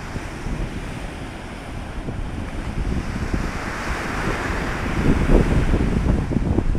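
Storm waves breaking and washing up a pebble beach, with wind buffeting the microphone. The wash swells about four seconds in, and the wind gusts grow heavier and louder near the end.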